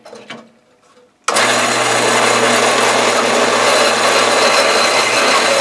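Vertical bandsaw switched on about a second in and running steadily with a low hum, as the steel swivel-ball rod end of a small hydraulic cylinder is fed to its blade to be cut off. A few light handling clicks come before it starts.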